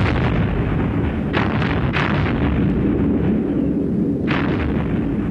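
Naval gunfire and explosions: a continuous low rumble broken by sharp blasts, one at the start, two close together around one and a half to two seconds in, and another a little past four seconds.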